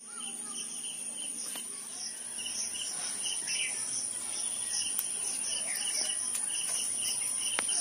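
Insects calling: a steady high-pitched drone with a chirp repeating about three times a second. A few sharp clicks or snaps sound over it.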